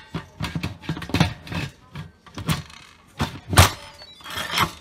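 Instant Pot lid being set on the pot and twisted shut: a string of plastic-and-metal clunks and knocks with scraping in between, the loudest hit a little past the middle.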